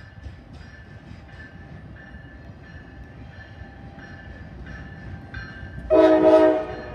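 GE Dash 9 diesel locomotive rumbling past with a faint ring repeating about every two-thirds of a second. Near the end its air horn sounds one short blast of about a second.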